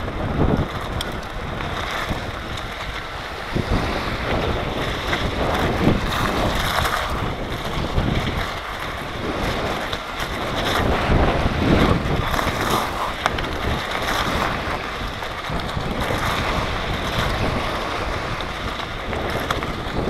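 Wind buffeting a camera microphone on an electric mountain bike riding over shingle and sand, with the crunch and rattle of tyres over stones and shells. The noise surges and eases unevenly, with scattered knocks from bumps.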